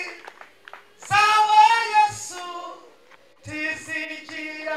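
A single voice singing unaccompanied through a PA system: two drawn-out phrases of held notes with a short pause between them.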